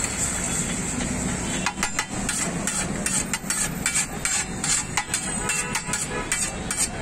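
Metal spatula clicking and scraping against a hot griddle in quick, irregular strikes starting about two seconds in, over a steady sizzle.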